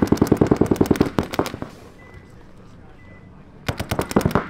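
Paintball markers firing rapid strings of shots, about a dozen a second. A long string runs for the first second and a half, then there is a lull, then a second, shorter burst comes near the end.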